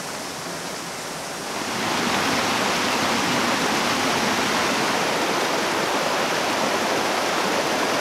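Rushing white water of a mountain waterfall cascading over rocks, swollen and in full flow after heavy rain: a steady roar of water that grows louder about two seconds in.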